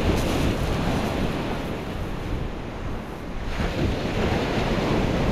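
Surf breaking on a shingle beach, a steady wash of waves with wind buffeting the microphone; a wave breaks louder a little past halfway.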